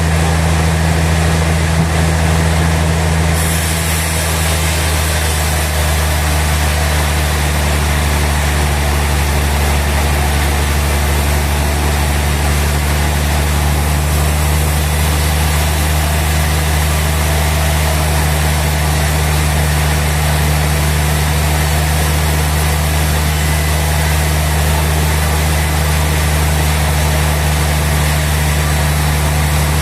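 Sawmill machinery running steadily with a constant low hum and a broad mechanical noise; a higher hiss joins about three seconds in.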